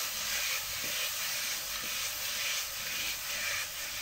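Chopped fruit sizzling and bubbling in hot caramelised sugar in a frying pan, a steady hiss that swells and fades about twice a second as the pan is swirled on the hob.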